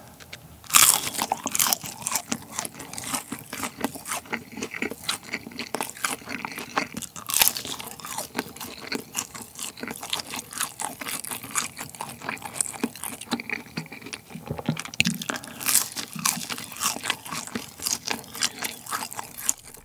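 Close-miked biting and chewing of McDonald's Chicken McNuggets: the crisp fried batter crunches and moist chewing clicks keep on throughout. A loud bite comes about a second in and another around seven seconds.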